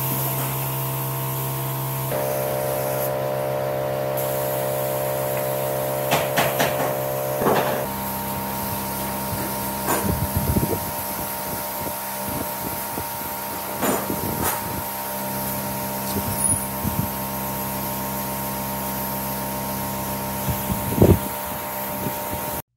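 Gravity-feed spray gun hissing as it sprays finish onto pine wood, over a steady machine hum, with a few short knocks or clicks.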